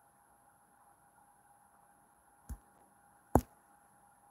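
Near silence broken by two short knocks just under a second apart, a faint one then a louder one: handling noise on the recording phone.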